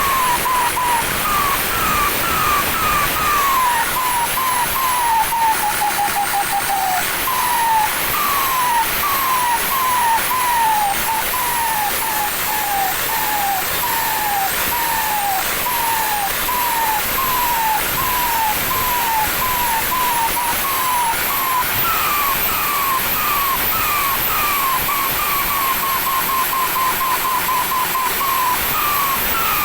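Turbocharger with a racing compressor housing whistling in a quick series of short falling chirps, about one and a half a second, over a steady hiss.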